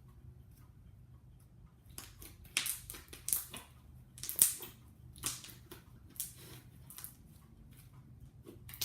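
Slime being squished and kneaded by hand: after a quiet start, a series of short, sharp squishes, roughly one a second, begins about two seconds in.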